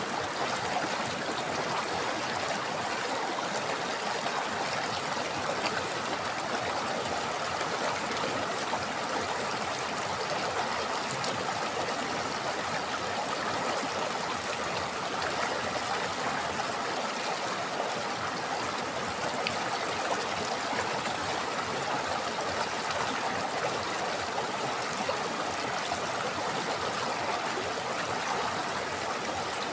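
River water flowing over rocks, a steady rushing and gurgling without a break.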